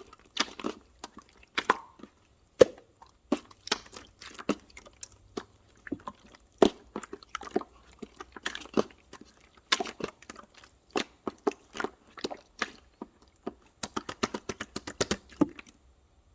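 Irregular crisp crunching and clicking sounds, with a quick rapid run of clicks near the end.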